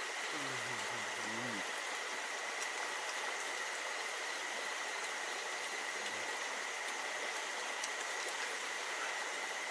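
Stream water rushing steadily: an even hiss with no break, with a steady high-pitched tone running through it.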